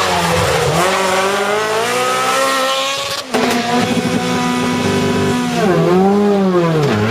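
Rally car engine at full throttle, the revs climbing for a couple of seconds and then cutting off abruptly about three seconds in. It picks up again at a steady high pitch, and near the end the revs fall and climb once more.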